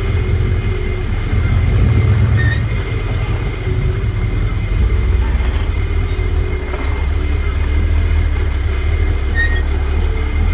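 Rock buggy's engine running at low revs while crawling over sandstone ledges, the low rumble swelling and easing as the throttle is worked.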